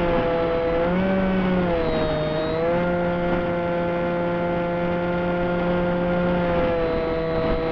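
RC model plane's motor and propeller whining steadily, heard from a camera on the plane, over a constant hiss of rushing air. The pitch wavers slightly with throttle in the first few seconds, then holds steady.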